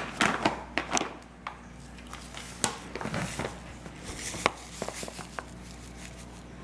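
Clear plastic bag crinkling and rustling in the hands, with irregular sharp crackles, as powdered borax is tipped out of it into a plastic tub.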